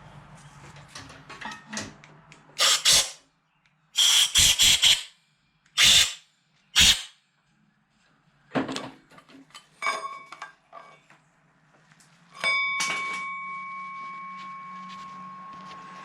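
Short blasts of compressed air from an air blow gun blowing debris out of the head-bolt holes in an engine block, four or five bursts in the first seven seconds. Later come a few clicks, then a metallic clank about twelve seconds in that leaves a long ringing tone slowly fading away.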